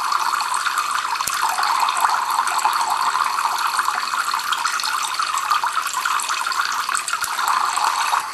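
Tap water streaming steadily from the two drip cylinders of a homemade Kelvin water dropper and splashing into the collecting cans below.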